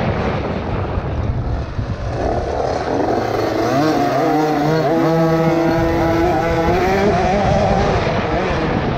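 50cc two-stroke youth motocross bikes racing, their engines revving and changing pitch as they climb and drop through the gears. In the middle several high engine notes overlap as another bike rides close alongside.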